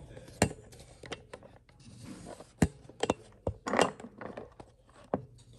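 Scattered sharp knocks and clicks from hand work with tools in a workshop, about half a dozen, with a short rattle a little under four seconds in.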